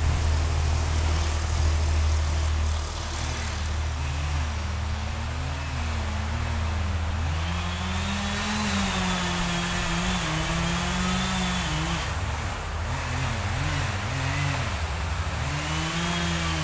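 Chainsaw cutting into a white pine trunk, heard from a distance, its engine pitch repeatedly rising and falling as the saw works, over a steady low rumble.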